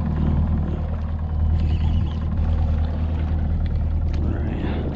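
Small boat's engine idling, a steady low hum, while the boat sits over a wreck.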